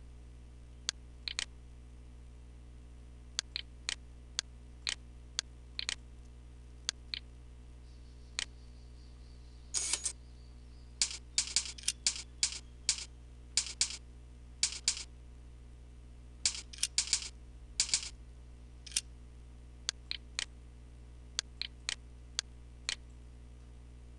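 Computer mouse and keyboard clicks: sharp, irregular clicks, many in quick pairs like double-clicks and thickest around the middle, over a steady low electrical hum.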